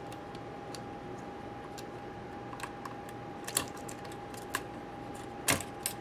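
Scattered small, sharp clicks and taps of a screwdriver and small parts against the opened laptop as a slipping part is worked into place. The loudest click comes about five and a half seconds in. A faint steady high tone runs underneath.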